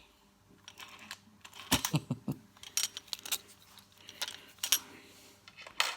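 Irregular clicks and light knocks of a metal padlock and lock-picking tools being handled.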